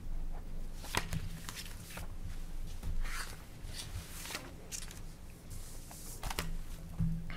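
Papers being shuffled and rustled on a table, with scattered light clicks and taps.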